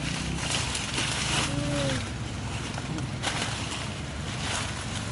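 Wind rumbling and buffeting on the microphone outdoors, with a steady low hum underneath and a brief faint tone about one and a half seconds in.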